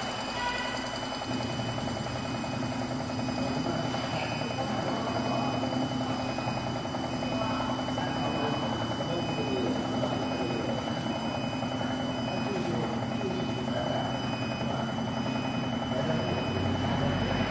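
CNC woodworking lathe turning a wooden column: the spindle and drive motors run steadily with a hum and a high whine, while the cutter shaves the spinning wood.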